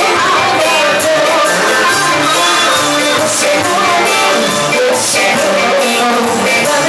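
Live amplified Greek popular song: a woman singing over band accompaniment that includes guitar, with a wavering sung melody.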